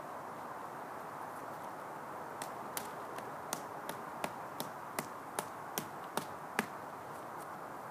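A tarp stake being driven into the ground with a run of about a dozen sharp taps, roughly two or three a second, getting louder toward the end, over a steady outdoor hiss.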